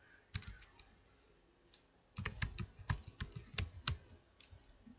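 Typing on a computer keyboard: a few keystrokes just after the start, then a quick run of keystrokes from about two to four seconds in.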